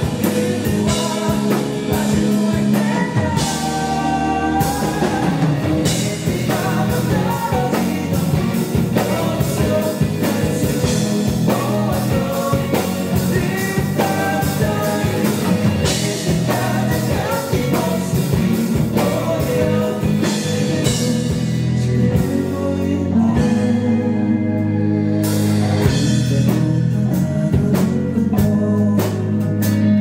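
Live rock band playing a song with a lead vocal over electric bass, guitar and drums.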